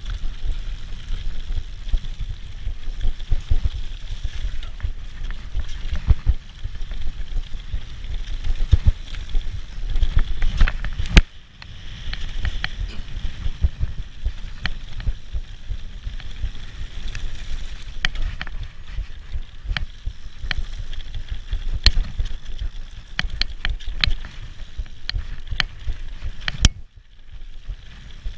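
Mountain bike ridden fast down a dirt forest trail: a constant low rumble of tyres and wind on the microphone, broken by sharp knocks and rattles from the bike over bumps, the loudest knock about eleven seconds in.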